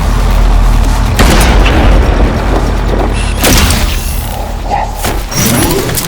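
Deep booming hits over background music, with sharp impacts about a second in and again a little after three seconds.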